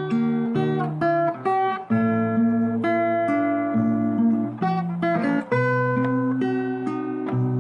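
Background music: an acoustic guitar picking and strumming chords, the notes changing every second or so.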